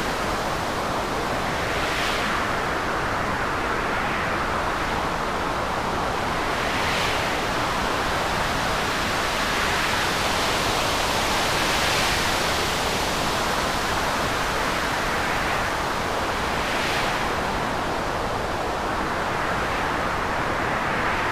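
Stormy sea: a dense, continuous rush of rough surf, with waves cresting and breaking about every five seconds.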